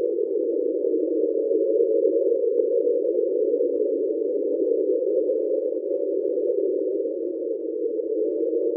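NOAA hydrophone recording of the "Train" sound, an iceberg scraping along the seabed, heard as a steady drone of several close tones held without a break.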